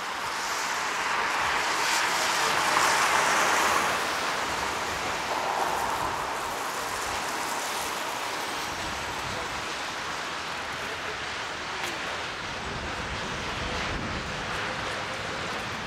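Outdoor city street noise: a steady hiss of traffic with one vehicle passing, loudest about two to four seconds in.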